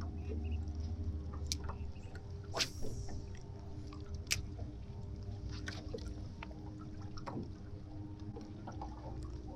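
A steady low mechanical hum from a boat, with scattered light clicks and knocks, the sharpest about two and a half and four seconds in.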